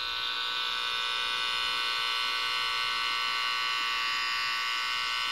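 Network tone probe's speaker giving a steady, buzzy electronic tone as it is held to the front of a patch panel, picking up a tone generator's signal. At this spot the pickup is weak: hardly anything can be heard there, so no port stands out.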